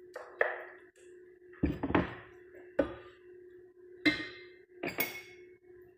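Kitchen utensils clinking and knocking against a glass baking dish, a plate and a frying pan as fried eggplant is laid into the dish: about six sharp clinks spread through, over a steady low hum.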